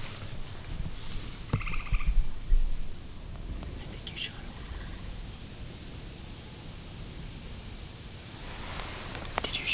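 Steady high-pitched chorus of insects, crickets or katydids, with a few knocks and rustles in the first three seconds.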